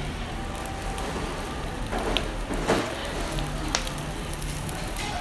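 Mackerel fillet grilling on a wire mesh over a charcoal yakiniku grill: steady sizzling with sharp crackles and pops from the coals scattered through.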